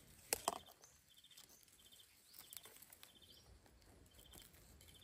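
Quiet forest ambience: an insect chirps in short, rapid, high-pitched pulse trains every second or so, often in pairs. A couple of sharp crackles come about half a second in, and a few faint rising whistles sound behind.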